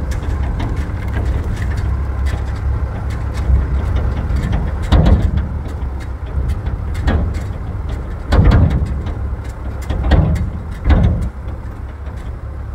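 Motor vehicle on the move: a steady low rumble with many short rattling clicks. Several brief louder surges drop in pitch, the loudest about eight and a half and eleven seconds in.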